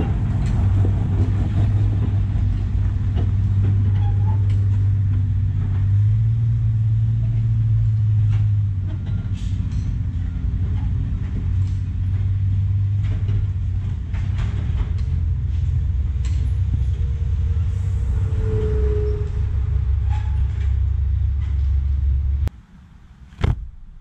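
Caterpillar D4C bulldozer's diesel engine running steadily as the dozer backs off its trailer and tracks up a gravel driveway, with light clanks mixed in. Near the end the engine sound cuts off abruptly, and a single sharp knock follows.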